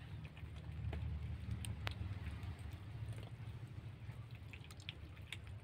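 Several cats and kittens eating wet cat food: scattered small wet chewing and smacking clicks, one sharper click about two seconds in, over a low steady rumble.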